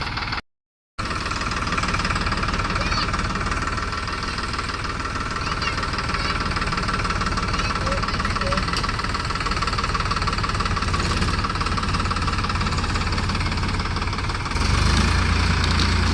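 Tractor diesel engine running steadily with a knocking clatter. It drops out for half a second near the start and grows louder near the end.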